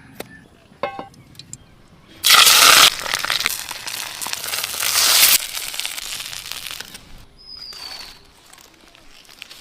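Fish hitting hot oil and sizzling: a sudden loud crackling hiss about two seconds in that dies down gradually over the next few seconds.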